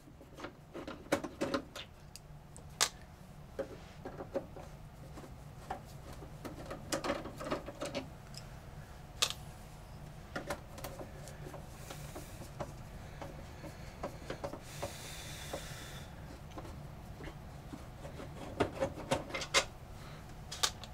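Light clicks and knocks of screws and a hand tool on the sheet-metal base plate of an AT&T UNIX PC 3B1 as its screws are taken out, with two short rushing scrapes in the second half.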